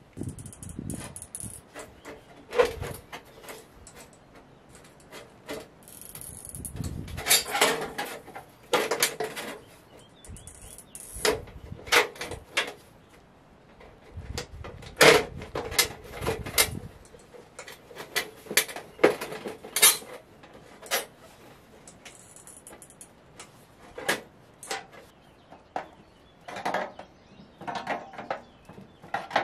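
Irregular metallic clinks and knocks from hand-tool work on a pipe and its sheet cover, some strikes ringing briefly, with a few duller thumps between them.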